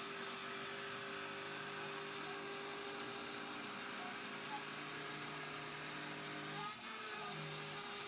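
Creation Station CNC router running its spindle and cutting circles out of hardboard: a steady whine with several held tones, briefly dipping and shifting in pitch near the end.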